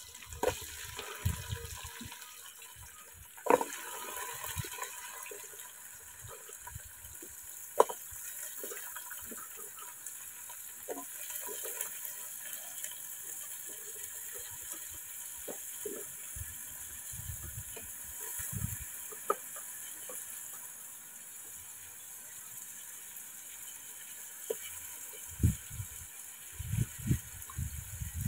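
Small splashes and knife clicks as pumpkin pieces are peeled by hand and dropped into a basin of water, over a steady faint hiss. A few dull thumps come near the end.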